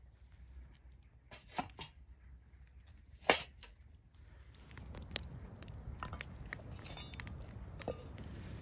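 A couple of light knocks, then a sharp metal clank about three seconds in as the cast iron pot lid is set down on the steel fire grill. After that, a campfire crackles with scattered pops.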